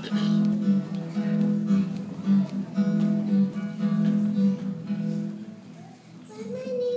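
Instrumental accompaniment playing the introduction to a children's song, steady chords throughout; a voice begins singing near the end.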